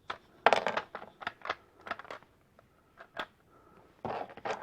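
Plastic Lego bricks clicking and clattering as the pieces of a brick-built pistol's barrel and slide are handled and pushed together. A quick flurry comes about half a second in, then scattered single clicks, and another cluster near the end.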